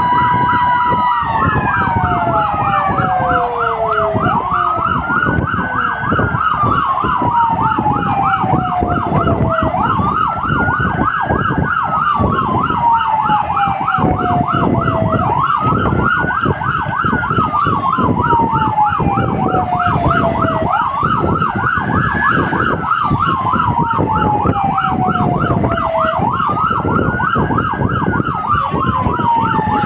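Fire engine sirens heard from inside the cab of the moving truck: a slow wail that rises for about a second and falls away over about four seconds, repeating every five seconds or so, over a rapid yelp warbling several times a second. Near the start a held steady tone drops away. Engine and road noise run underneath.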